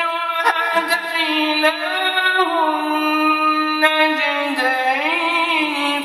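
Man's solo melodic Quran recitation, drawing out long held notes at a steady pitch, then a wavering, ornamented run of gliding pitch near the end.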